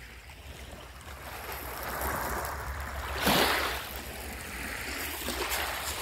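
Flowing stream water rushing steadily. It swells about two seconds in, with a louder surge a little after three seconds.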